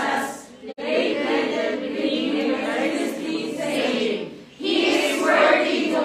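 A congregation reading a Bible passage aloud in unison, many voices speaking together, with two short breaks for breath.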